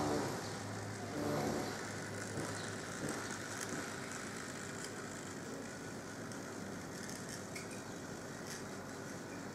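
Rivarossi D245 model diesel shunter running on its track, a small motor whirring, with light clicks from the wheels on the rails. Two short hooting tones sound near the start over a low hum.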